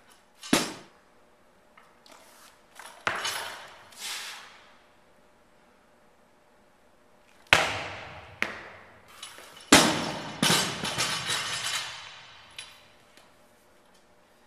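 Loaded barbell with rubber bumper plates dropped from overhead onto a wooden lifting platform, giving a sharp thud about half a second in. After another sharp impact around seven and a half seconds, a second drop near ten seconds in bounces and rattles for about two seconds.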